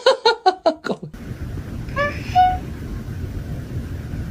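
A cat's quick run of short yowls that cuts off about a second in, followed by a low steady rumble and one short two-note meow about two seconds in.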